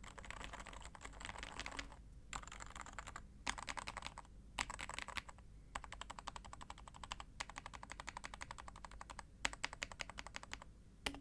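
Typing on a Topre electrostatic capacitive keyboard with 45 g rubber domes under MX sliders and DCS blank keycaps, giving muted, thocky keystrokes. Rapid, even runs of key presses come in bursts of about a second each with short pauses between them, ending in a couple of single presses.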